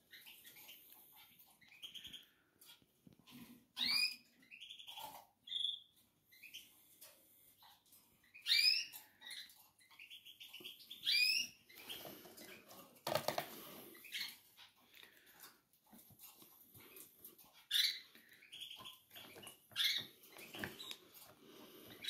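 Canary chicks cheeping: short high chirps, many sliding quickly in pitch, at irregular intervals, with a brief rustle of handling about midway.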